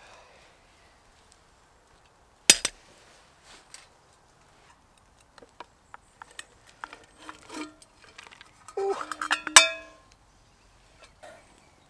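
Blackened metal camping pot and its lid clanking: a sharp clank about two and a half seconds in, then a run of knocks and clatter as boiled crayfish are tipped out of the pot onto a wooden board, ending in a loud ringing clang of metal near the end.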